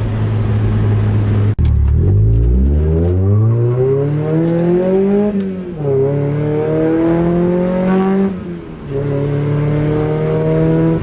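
Mazda Miata's four-cylinder engine, heard from inside the car, accelerating hard. After a sudden break about a second and a half in, the revs climb steeply, drop at an upshift about five and a half seconds in, climb again, dip once more around eight seconds, then hold steady.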